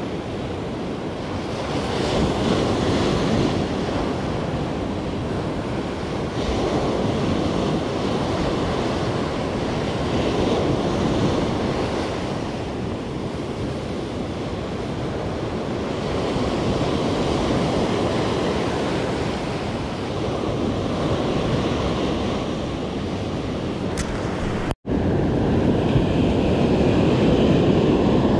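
Ocean surf breaking on a sandy beach, a steady wash that swells and eases every few seconds, with wind buffeting the microphone. The sound drops out for an instant near the end.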